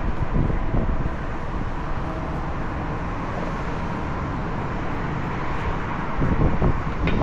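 Steady rumbling outdoor background noise, heaviest in the low end, with a faint steady hum.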